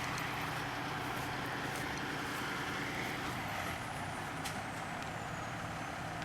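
Steady engine hum of vehicles running at an accident scene, with a faint high whine falling slowly in pitch over the second half.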